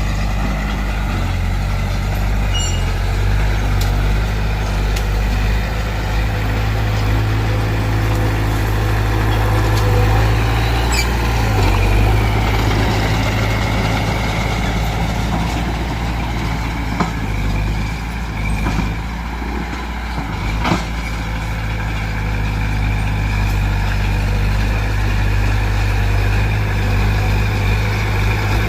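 Heavy diesel engines of a bulldozer and dump truck running steadily under load, with a few short metallic clanks and one sharp clank about three quarters of the way through.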